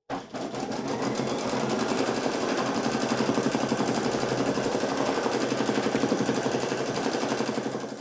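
Single-needle embroidery machine stitching out a design, its needle running at a fast, even rhythm. It starts abruptly and stops near the end.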